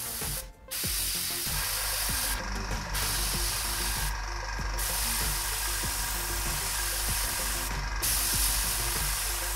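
AMMO Mig AirViper 0.2 mm airbrush test-spraying red paint, a steady hiss of air and paint that stops briefly four times as the trigger is let go: about half a second in, near three seconds, near four and a half seconds and near eight seconds.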